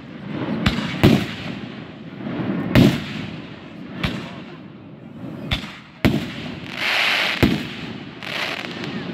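Aerial fireworks shells bursting overhead: about seven sharp bangs at uneven intervals, each followed by a trailing echo. Around seven seconds in there is a spell of crackling from glittering stars.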